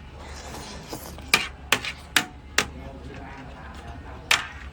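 Sharp knocks or taps of something hard: four about half a second apart, then one more near the end.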